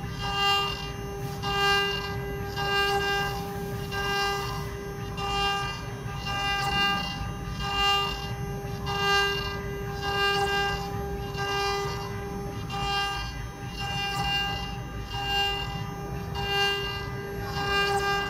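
STM1325 CNC wood router carving a 3D relief in a wooden board. The spindle gives a steady whine, and a louder whine of several tones swells and fades about every second and a quarter as the bit works over the relief.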